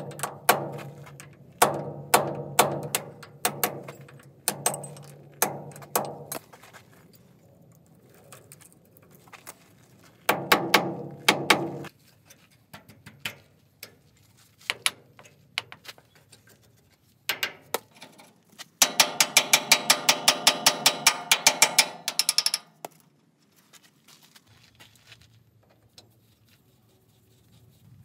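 Hammer striking the steel hydraulic cylinder during a seal-ring replacement: sharp, ringing metal blows in pairs and short runs. About two-thirds of the way through comes a fast, even run of about eight blows a second.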